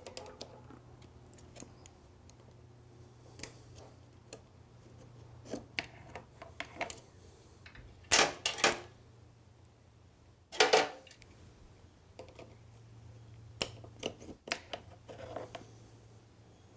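Small metal parts clicking and clinking as the brake-pad retaining spring clips and pins are pushed down and pulled out of a radial-mount motorcycle brake caliper. Two louder metallic clanks come about eight seconds and ten and a half seconds in.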